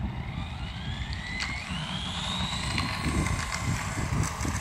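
Radio-controlled car's motor whining as it speeds up, the pitch rising over the first few seconds and then holding steady, over the low rumble of its wheels rolling on asphalt.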